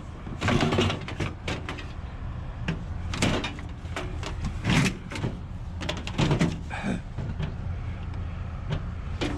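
Scrap items being handled and loaded, with a series of knocks and clunks a second or so apart over a steady low rumble.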